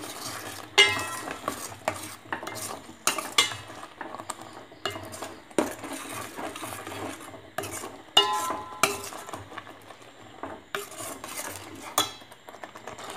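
Steel spoon stirring a thick ash gourd and coconut-milk curry in a stainless steel pot: irregular scrapes and clinks of metal on metal, several of them ringing briefly.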